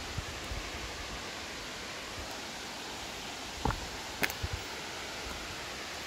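Steady rushing hiss with a few footsteps on loose stones, short knocks and scrapes just past halfway.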